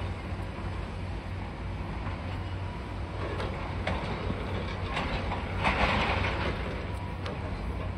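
High-reach demolition excavator at work: its diesel engine drones steadily while concrete is crunched and debris clatters down in scattered bursts, loudest about six seconds in.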